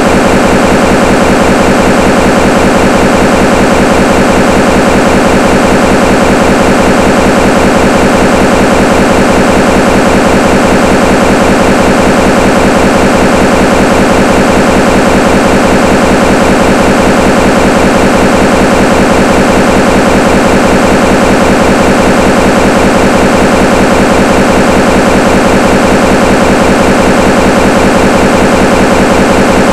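Loud, steady static-like noise that never changes, covering the whole sound track in place of the interview's speech: a corrupted or failed audio track.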